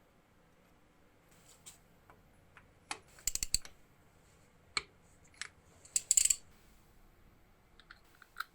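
Scattered sharp clicks and light taps of small hard objects being handled, bunched into two short clusters about three and six seconds in.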